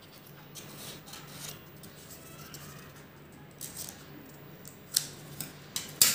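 Scissors snipping through thin paper, a run of short cuts trimming small strips, with the sharpest snips near the end.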